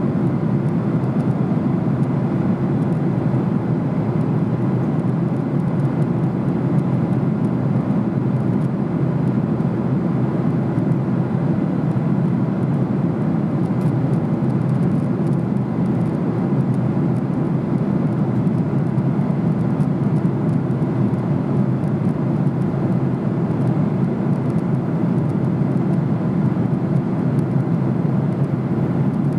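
Steady cabin noise of a Boeing 767-300 in flight, heard from a seat by the wing: engine and airflow noise as a low, even rush that does not change.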